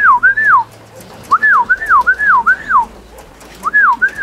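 A person whistling to call young racing pigeons down into the loft: quick rising-and-falling whistled notes in runs of about four, with short pauses between the runs.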